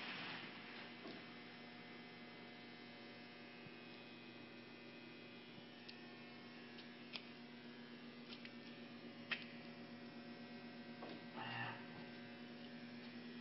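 Steady electrical hum of a 2008 Clausing CNC lathe that is powered up with its spindle stopped. Two sharp clicks come in the middle, and a brief rustle near the end.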